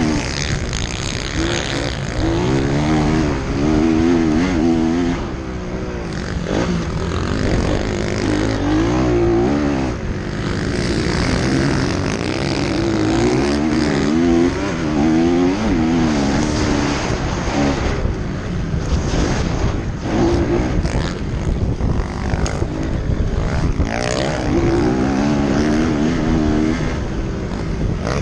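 Motocross bike engine running hard, its pitch rising and falling over and over as the throttle is worked through the gears.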